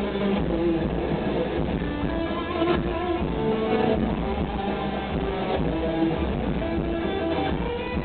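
Electric guitar played live through a stage amplifier: a melodic line of held notes that change about every half second, over a steady low bass underneath.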